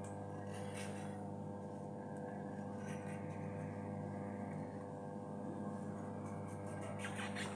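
A steady hum with many overtones throughout. A few brief scrapes of a small knife peeling a vegetable come through about a second in, around three seconds in and near the end.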